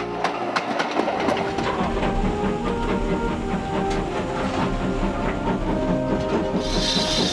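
Steam train running along the line: wheels clicking over the rail joints and a steady running rumble. A hiss joins near the end.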